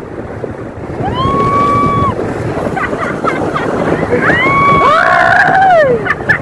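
Wind buffeting the microphone and water rushing as a banana boat is towed fast over the sea, with riders letting out long high-pitched yells, one about a second in and several overlapping near the end.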